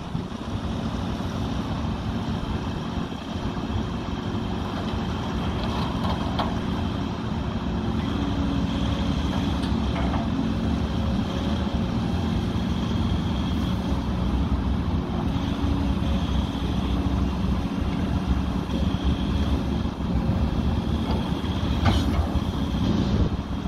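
2013 Link-Belt 130X3 hydraulic excavator's diesel engine running steadily under hydraulic load as the boom and bucket are worked, its note strengthening about eight seconds in. A few faint knocks come through.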